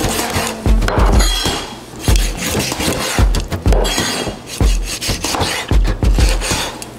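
A meat cleaver and knife cut and scrape through raw chicken wings, with knocks of the blade on a wooden cutting board, over background music with a steady bass beat.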